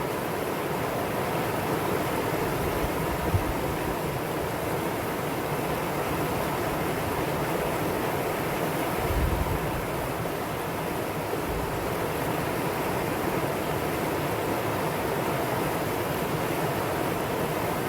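Mountain valley stream running over rocks: a steady rush of water, with a couple of brief low bumps.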